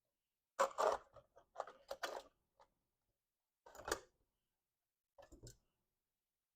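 Circuit board and power supply case being handled and worked loose: irregular clicks, knocks and short scrapes of plastic and metal in a few separate clusters.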